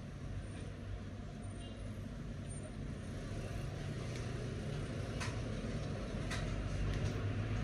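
A metal ladle clinking against a large steel pan of pulao as rice is served into a foam box: a few sharp clicks over a steady low rumble.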